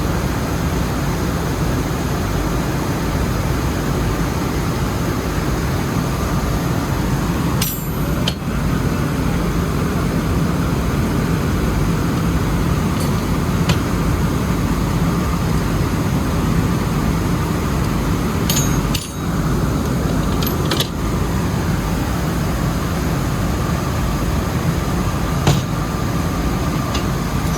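Rice mill machinery running with a steady, loud drone and a faint steady whine above it. A few light metallic clicks come through, and the sound briefly dips three times.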